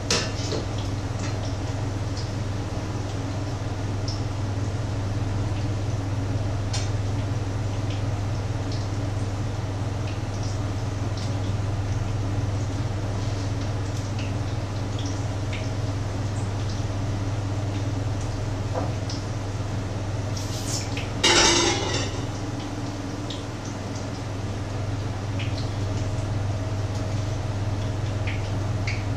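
Cooking at the stove: pans and utensils clinking now and then over a steady low hum, with one brief louder burst of noise about two thirds of the way through.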